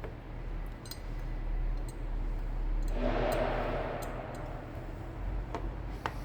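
Light clicks and taps from handling small parts and tools, with a brief rustling scrape about three seconds in, over a steady low hum.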